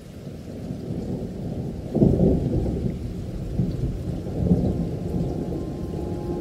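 Heavy rain with a low, muffled rumble that swells about two seconds in.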